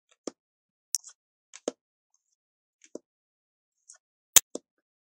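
Tarot cards being taken off a deck and laid one at a time onto a pile of cards: a series of short, light clicks and slaps about a second apart, the loudest a sharper slap near the end.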